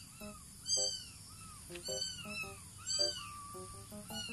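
A cat meowing again and again, about once a second: short, high calls that rise and then fall in pitch.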